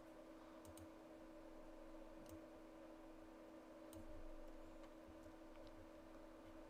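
Near silence: a steady low hum with a few faint, scattered clicks from a computer mouse and keyboard being worked.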